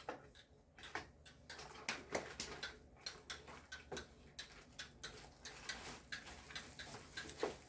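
A boxed kitchen utensil set being unpacked: scattered light clicks and taps of packaging and utensils being handled, a few a second.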